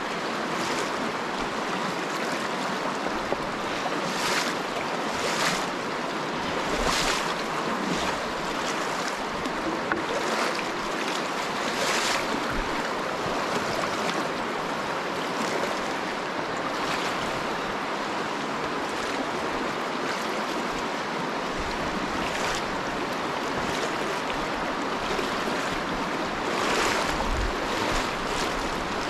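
Shallow river water rushing over stones and around wading legs, with a sloshing splash from each stride every second or two.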